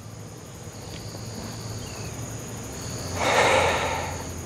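Crickets chirring steadily at night over a low hum. About three seconds in comes a man's heavy breath lasting about a second, the loudest sound.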